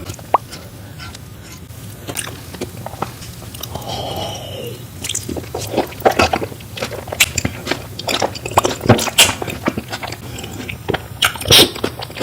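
Close-miked mukbang eating: crunchy bites and chewing with sharp crackles, coming thicker and louder from about halfway.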